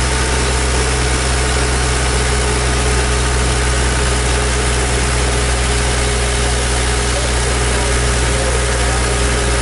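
Engine powering the whistle trailer's air compressor, running steadily at one even speed with a low, unchanging sound.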